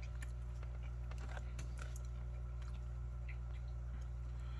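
A person chewing a mouthful of food, with a few faint small clicks, over a steady low hum.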